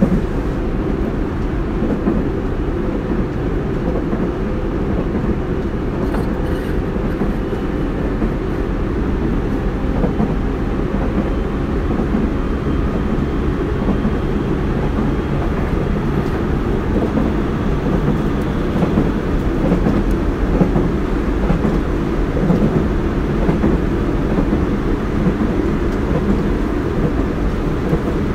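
Cabin running noise of a Tobu 30000 series electric train car (MoHa 33609) travelling at speed between stations: a steady, continuous rumble of wheels on rail and running gear.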